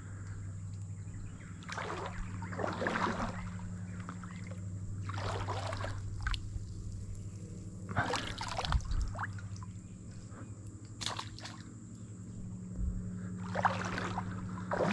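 Sloshing of someone wading through shallow water, a swish every second or two as the legs move.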